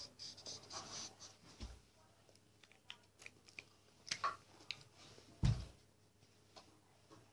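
Faint handling noises: light rustling and small clicks, with a dull thump about one and a half seconds in and a louder one about five and a half seconds in.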